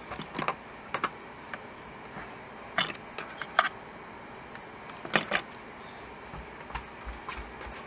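Spatula clicking and scraping on an electric griddle while an omelette is rolled up: a handful of short sharp knocks spread over several seconds, with a faint low rumble near the end.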